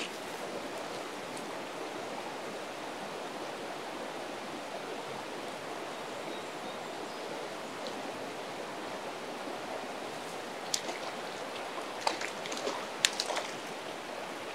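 Steady rush of a river running over rocks and riffles. A few short, sharp ticks stand out over the flow near the end.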